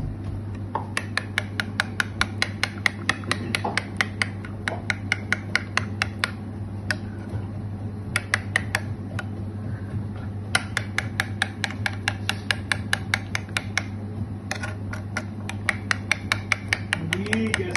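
A metal spoon beating a yogurt marinade in a ceramic bowl, clinking against the bowl in quick runs of about six strikes a second with short pauses. A steady low hum runs underneath.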